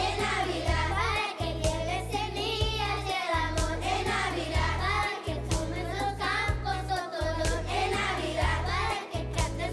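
Children's school choir singing a holiday song with instrumental accompaniment, the voices moving in sustained sung phrases over a steady bass line.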